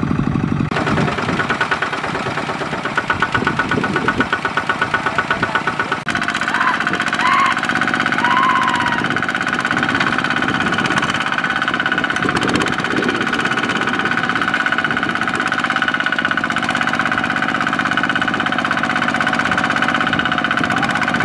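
Two-wheel walking tractor's single-cylinder diesel engine running hard under load as the driving wheels spin to drag a stuck, rice-laden trailer. For the first few seconds it knocks in a pulsing beat about five times a second, then changes abruptly about six seconds in and runs steadier.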